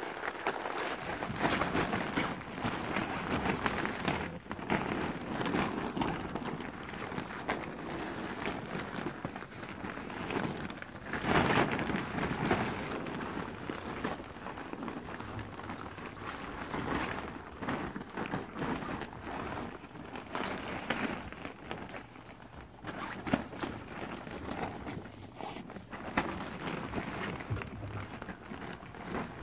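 Eight-week-old puppies tussling in and around a nylon play tunnel: irregular rustling and crinkling of the fabric with scrabbling and small bumps, loudest about eleven seconds in.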